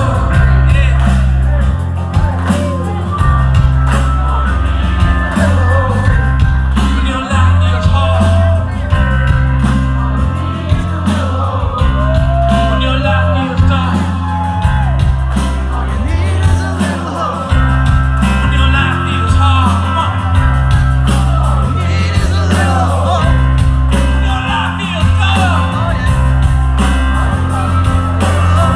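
Live rock band playing loud: bass and drums under a sung melody, heard from within the crowd.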